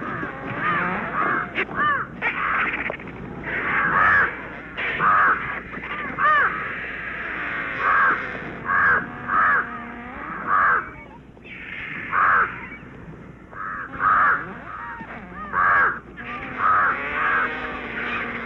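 Crows cawing over and over, a harsh call about every second.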